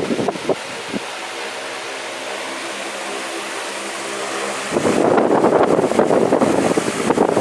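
Tron electric fan running. Its airflow buffets the microphone in the first second and again from about five seconds in. In between, the steady hum and whir of the motor and blades is heard more cleanly.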